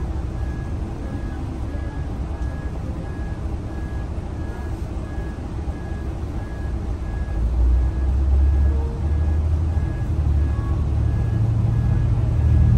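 Scania L94UB city bus engine heard from inside the passenger cabin, running low and steady, then growing louder and deeper from about halfway through as the bus moves off under load. A thin high beep repeats about two to three times a second throughout.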